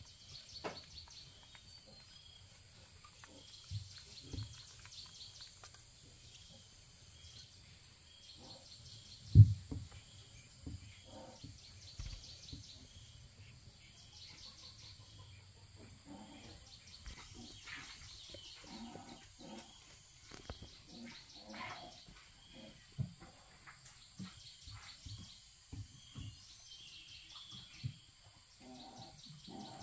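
Faint background of small chirps repeating about once a second, with soft rustles and knocks from a baby macaque handling a plastic feeding bottle on blankets. One sharp thump comes about nine seconds in.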